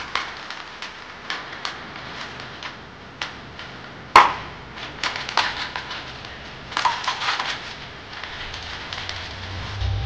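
Irregular clicks, taps and knocks, with one sharp, loud knock about four seconds in and a short cluster of them around seven seconds.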